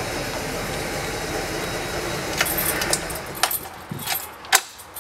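PAZ-32053 bus engine idling steadily, then cutting out about three seconds in. A few sharp clicks and keys jangling follow.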